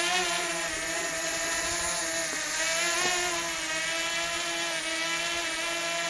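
Drone in flight: a steady buzzing whine of its propellers, several tones stacked together, the pitch wavering slightly now and then.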